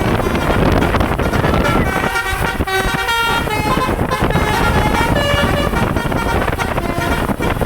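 Bus 'telolet basuri' musical air horn playing a tune of several notes that step up and down in pitch, starting about a second and a half in, over a steady low vehicle rumble.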